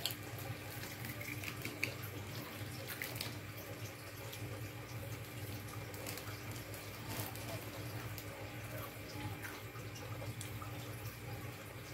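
Quiet eating sounds: a person chewing and fingers picking rice and cooked papaya shoots off a plate, with a few faint clicks. A steady low hum runs underneath.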